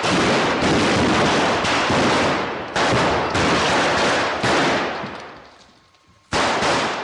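Prop guns firing blanks in rapid volleys while pyrotechnic charges go off, in several loud bursts. The noise fades away past the middle and starts again abruptly near the end.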